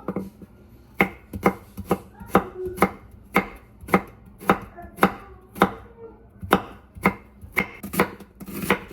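A steady series of sharp strikes, about two a second, each with a short ringing tail, in the even rhythm of chopping on a board.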